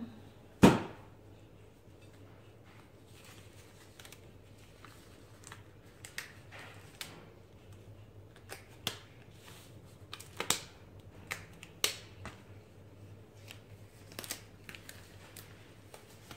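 A single sharp knock about a second in, then scattered light clicks and crinkles of thin disposable plastic food-prep gloves being handled and pulled on.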